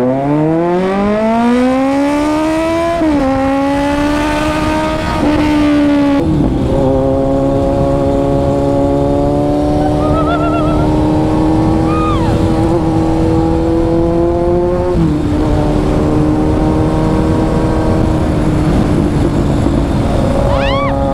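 Kawasaki Z900's inline-four engine, through a loud aftermarket exhaust, accelerating hard. Its note climbs steeply for about three seconds, drops briefly at gear changes about three and six seconds in and again past the middle, and otherwise holds a steady high note at speed. Wind rumble runs underneath.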